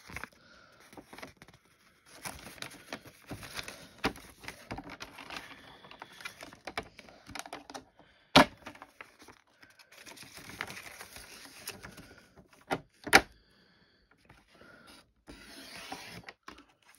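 Rustling and handling of craft-kit pieces, with several sharp clicks or taps. The loudest clicks come about eight and thirteen seconds in.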